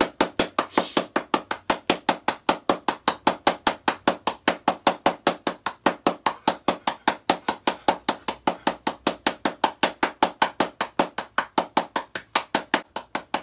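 Rapid, even knocking or tapping, about six sharp knocks a second, keeping a steady pace without a break.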